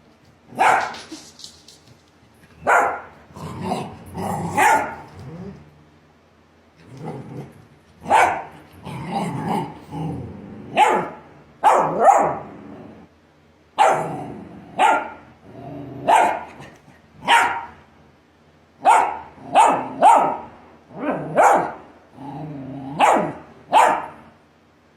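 Australian Shepherd barking repeatedly, single barks and quick runs of two or three, with a varying pitch and a few lower, growly stretches between barks.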